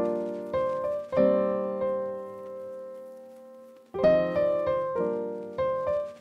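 Background piano music. Chords are struck and left to ring, with one held chord about a second in that fades away before the playing picks up again about four seconds in.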